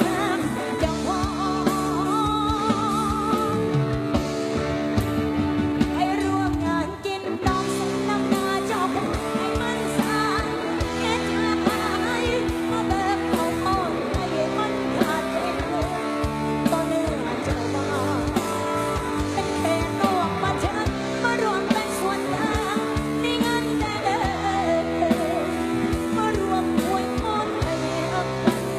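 Live lam sing band music with a steady drum beat and electric instruments, with a short break about seven seconds in.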